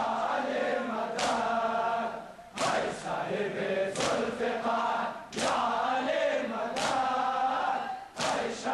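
A large crowd of men chanting a mourning lament in unison during matam, with a loud collective chest slap about every second and a half.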